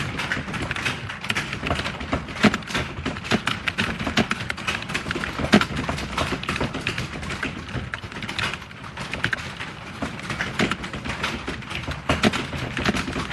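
Computer keyboard being typed on fast and continuously, a dense run of key clicks with a few louder strikes mixed in.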